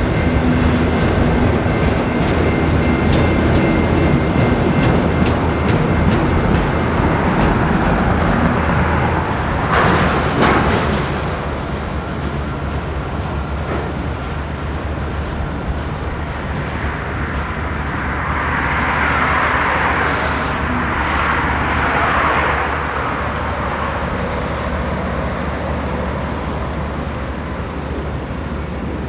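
A train passing on the tracks: wheels rattling and clicking over the rails above a steady low rumble. It is loudest for the first ten seconds or so, then eases off. A thin high whine runs from about ten to twenty seconds in, and a hissing swell comes around twenty seconds.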